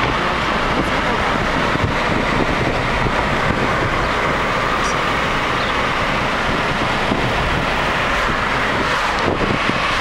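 Steady road noise from inside a moving car: tyres on asphalt and wind rushing past the body, at an even level throughout.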